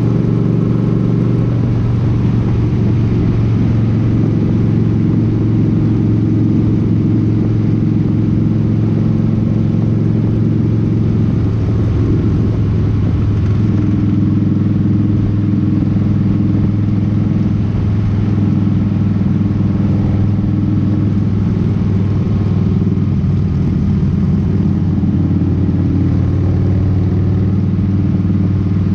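Cruiser motorcycle's engine running steadily at highway cruising speed, heard from the rider's seat together with wind rush. Its pitch shifts slightly about twelve seconds in.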